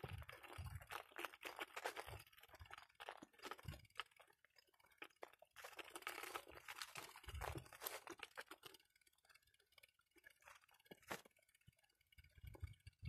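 Faint footsteps crunching on dry dirt and leaf litter, an irregular run of crackles and rustles that thins out after about nine seconds.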